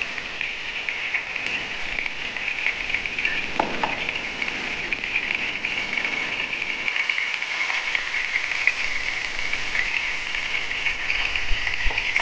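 Hot cooking oil sizzling and crackling steadily, with a few light knocks.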